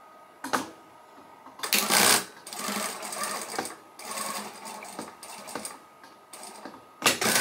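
Juki industrial sewing machine topstitching a cotton bandana's folded edge, running in short bursts that start and stop several times as the fabric is guided. The runs are loudest about two seconds in and near the end.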